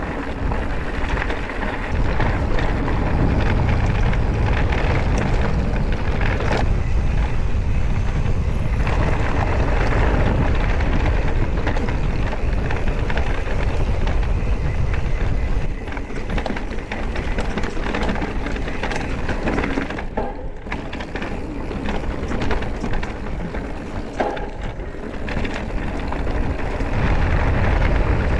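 Mountain bike riding downhill over loose gravel and stones: tyres rumbling and crunching, the bike rattling, with wind rushing over the microphone. The noise eases a little from just past halfway until near the end.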